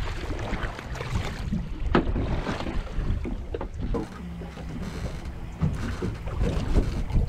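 Wind buffeting the microphone as a steady low rumble, with a few sharp clicks and knocks from handling a small red snapper and its hook and line.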